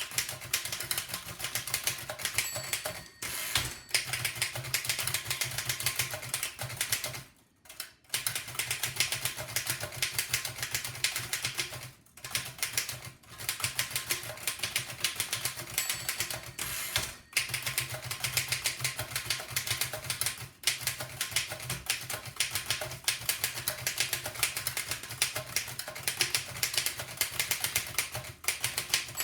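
1905 Fox No. 3 upstrike typewriter being typed on fast: a rapid, continuous clatter of key strikes, broken by a few short pauses.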